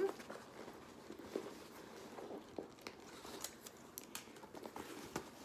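Faint rustling and crinkling as fabric cosmetic pouches and their packaging are handled, with a few small clicks scattered through.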